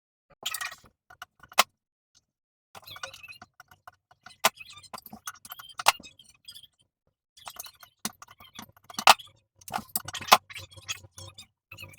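Metal hand tools and hardware clinking and rattling in irregular bursts of sharp clicks while the old toilet's supply hose and bolts are undone.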